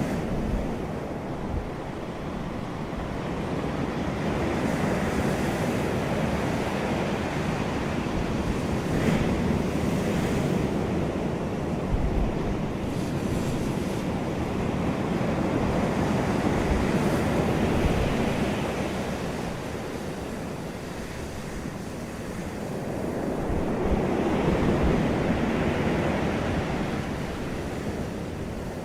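Sea waves breaking on the shore, the surf swelling and easing every several seconds, with wind rumbling on the microphone.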